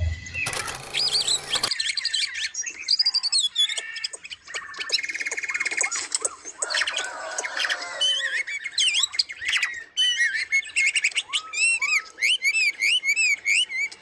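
Several small captive birds in an aviary chirping and calling, a mix of whistled notes and a buzzy trill, ending in a run of quick repeated arching whistles several times a second. A short noisy rush comes in the first second or two.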